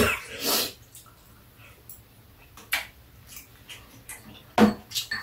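Eating sounds at the table: a short noisy slurp of soup at the start, then scattered light clicks of spoons and chopsticks against bowls.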